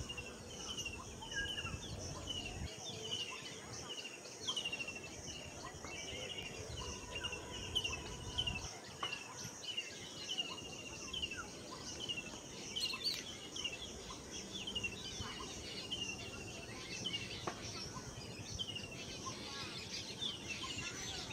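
Background birds chirping: many short, curved notes a few times a second, over a steady high insect hum and low outdoor background noise.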